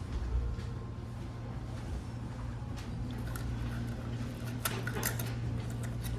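A steady low hum with a few light clicks and clinks scattered through it.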